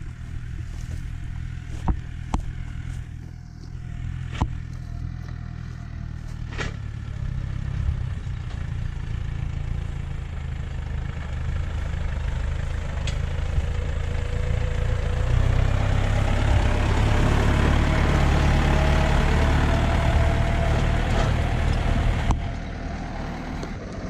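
Diesel tractor engines running: a steady low engine note throughout, with a tractor driving closer and growing steadily louder until the sound drops sharply about two seconds before the end. A few sharp clicks in the first several seconds.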